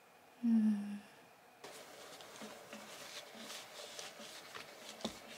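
A short, low 'hmm' from a young woman's voice, falling slightly in pitch. After a cut come faint cloth-rubbing and light clicking as a hair iron is wiped clean of oil with a cloth.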